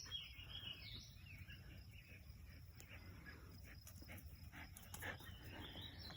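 Near silence: quiet outdoor ambience with a few faint bird chirps near the start and end.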